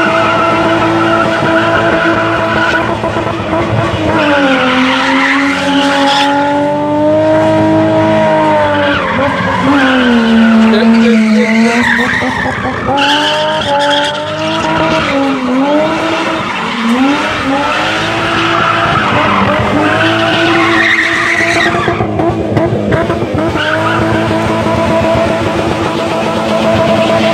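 BMW E30 spinning: engine held high in the revs, its pitch sagging and climbing several times as the throttle is worked, over the steady squeal of the rear tyres spinning on tarmac.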